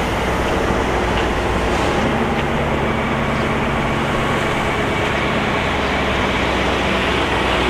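A machine running steadily: a continuous low hum under an even mechanical noise that does not change.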